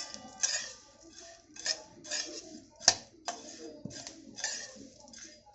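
Whole spices (cumin, fennel, cloves, black peppercorns) being dry-roasted and stirred with a wooden spatula in a hammered stainless-steel kadhai: a rhythmic scraping rattle about twice a second, with one sharp knock of the spatula on the pan about three seconds in.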